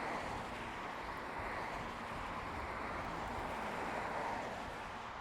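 Steady road traffic noise, tyres and engines, swelling a little and easing.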